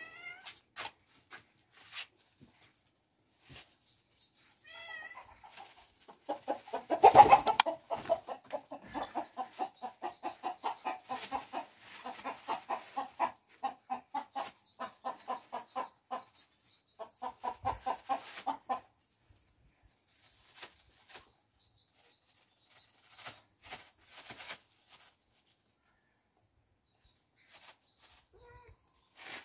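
Chickens clucking in a long run of short, quickly repeated notes through the middle, loudest near the start of the run, with a brief high wavering call just before it and a few faint taps and clicks before and after.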